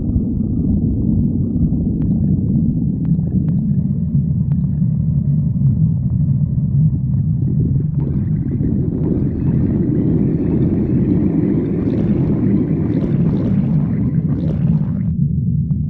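A hungry stomach growling: continuous low rumbling, joined about halfway through by a higher gurgling stretch that cuts off suddenly near the end.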